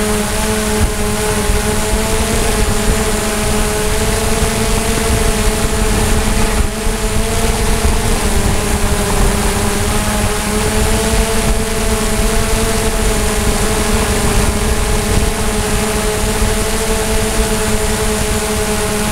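DJI Mavic drone's propellers whining steadily in flight, a layered hum that wavers slightly in pitch, over a constant rushing hiss.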